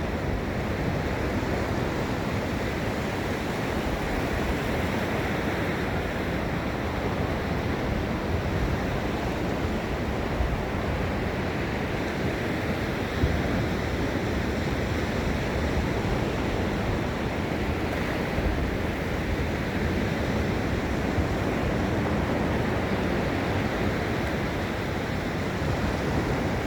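Gulf of Mexico surf washing onto a sandy beach: a steady, continuous wash of waves with no distinct breaks.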